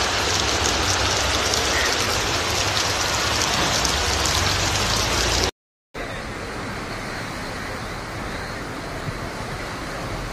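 Heavy rain and rushing floodwater make a dense, steady hiss that cuts off suddenly about five and a half seconds in. After a short silence comes a quieter, duller steady wash of floodwater as an SUV wades through it.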